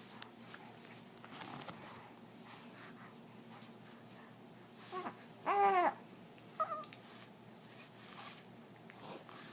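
A small child's voice: a faint short sound about five seconds in, then one louder note lasting about half a second that rises and falls in pitch, and a brief squeak just after.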